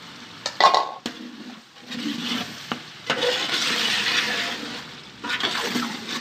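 A metal slotted spoon stirring and clinking against a large metal cooking pot, with a few sharp knocks early on. Chicken, tomatoes and green chillies sizzle in hot oil, with a spell of hissing frying in the middle.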